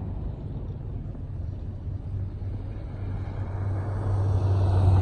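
A motor vehicle's low engine rumble, growing louder toward the end as it draws near.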